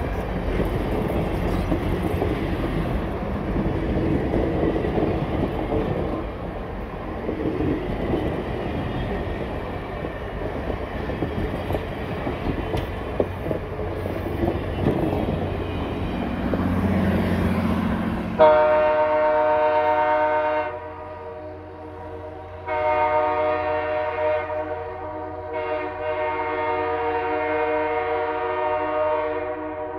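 An excursion train's passenger cars roll past, wheels rumbling and clicking on the rails. About eighteen seconds in, the train's diesel locomotive sounds its air horn three times in long blasts, several notes sounding at once.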